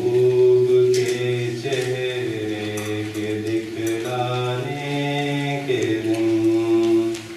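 A man singing an Urdu nazm unaccompanied through a hall's PA, drawing out the poem's last line in long held notes that step from pitch to pitch. The voice stops near the end.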